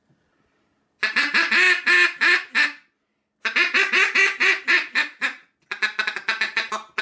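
Single-reed duck call being blown in three runs of quacks, the last run quicker and choppier. It is being test-blown after its reed was trimmed from the back to tune it, and the caller judges afterwards that it can still go a bit more.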